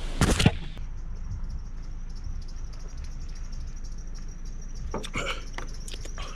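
Brief loud handling noise as the camera is grabbed. Then a faint, steady, high-pitched insect chirring, with a few short soft noises about five seconds in.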